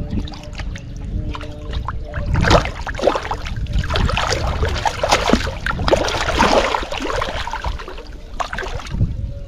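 Hooked catfish thrashing in shallow water, a flurry of loud splashes that starts about two seconds in and stops near the end.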